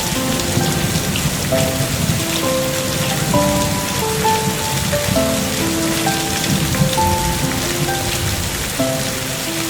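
Steady drizzle falling, with a soft, slow melody of single held notes playing over it.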